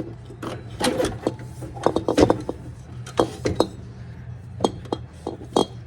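Irregular metal clanks and knocks as a replacement Embraco refrigerator compressor is set into place in the fridge's compressor compartment, over a steady low hum.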